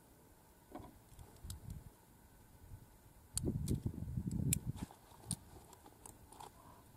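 Scattered light clicks and knocks of shotgun gear and shells being handled on a wooden bench, with a loud gust of wind rumbling on the microphone around the middle.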